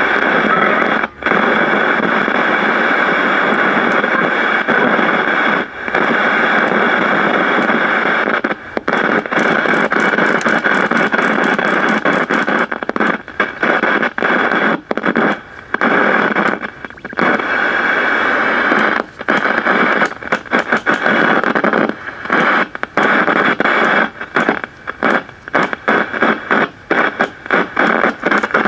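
Loud static hissing from a vintage Admiral portable tube TV's speaker, with no station tuned in. From about eight seconds in it keeps cutting out and back in, briefly and irregularly, with crackles.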